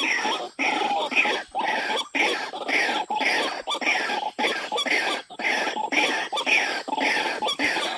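White-breasted waterhen (ruak-ruak) calling: a continuous series of harsh, rasping notes, about one a second with only brief breaks between them.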